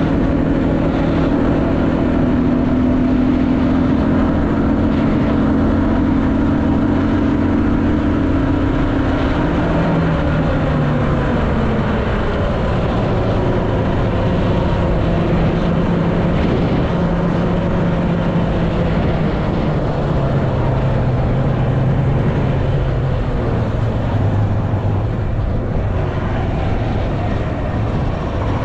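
Engine of a homemade three-wheeled off-road motorcycle running while it is ridden. The engine note holds steady for about ten seconds, then drops lower, and falls a little further in the last few seconds as the machine eases off.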